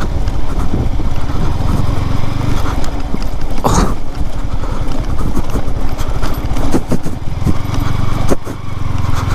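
Yamaha R15 motorcycle running as it is ridden over a rough, stony dirt track, with frequent knocks and rattles from the bike, such as the mudguard being struck.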